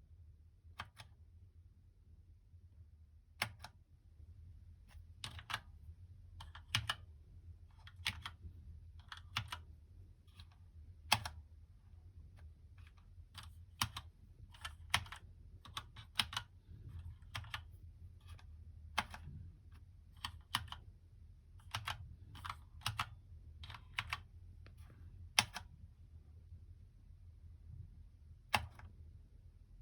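Keys on a Keychron K2 mechanical keyboard being pressed one at a time at irregular intervals, sharp clicks that sometimes come in quick pairs, with a last lone press after a pause near the end.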